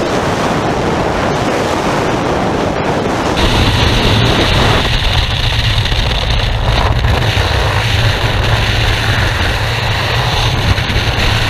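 Freefall wind rushing over the camera microphone, a loud, unbroken buffeting roar. About three and a half seconds in, the roar changes to a steadier low rumble with a hiss above it.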